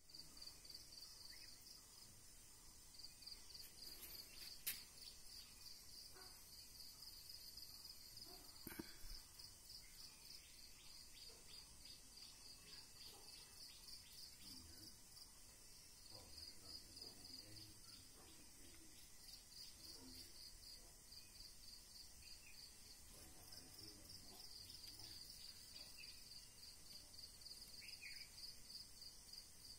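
Near silence with faint, steady high-pitched insect chirring that pulses evenly throughout. A single sharp click comes about five seconds in and a short knock near nine seconds.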